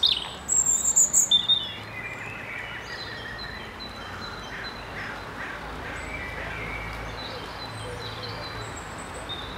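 European robin singing a short phrase of high, thin, warbling notes in the first second and a half. Then only faint, scattered bird notes over a low steady rumble.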